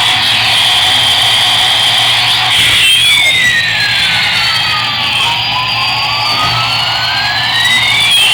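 A battery toy airplane's electronic sound effect playing through its small speaker: siren-like tones sweeping up and down, two overlapping, with one long slow sweep down and back up starting about three seconds in.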